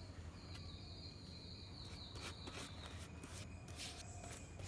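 Faint outdoor background: a thin, high, steady whine that fades out about three seconds in, over a low hum, with a few faint clicks after it.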